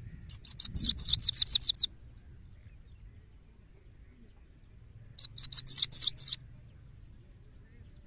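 Male goldfinch singing two short bursts of rapid, high twittering song, the first about a second and a half long and the second about a second long, some three seconds apart.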